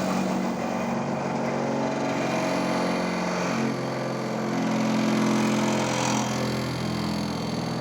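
Skewer-sharpening machine running steadily with a humming motor, its pitch wavering a little midway through.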